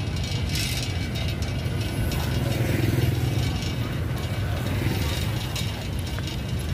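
Cycle rickshaw rolling along a city street: a steady low rumble with light mechanical rattling and clicking from the rickshaw.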